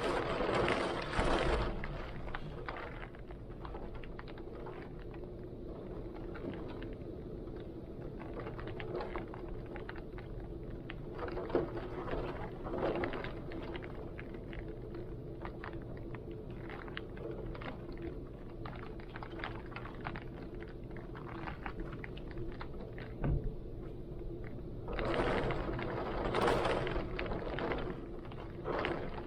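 Heavy wind blowing with rain, a steady low rushing dotted with many small drop ticks. Gusts swell louder at the very start and again near the end.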